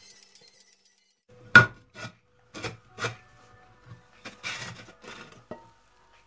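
Cookware being handled: a sharp knock about a second and a half in, then several lighter knocks and clinks and a short scraping rustle, as a glass lid comes off a frying pan and a plate is set over the pan and pressed down to turn the omelette out.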